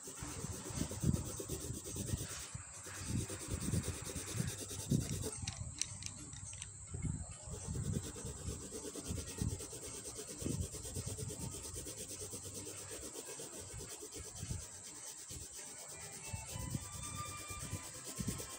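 Coloured pencil scratching over drawing paper in repeated, irregular shading strokes.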